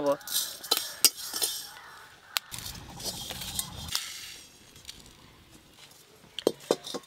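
A metal spatula clinking and scraping against an aluminium karai as dry-roasted whole spices (cumin and radhuni seeds) are scooped out and tipped onto a plate. Sharp clinks come in the first couple of seconds and again near the end.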